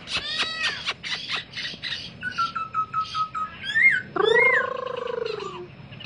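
Caged songbirds calling: a rapid string of chirps, then a quick trill about two seconds in. About four seconds in comes a long, drawn-out mewing call, the loudest sound here.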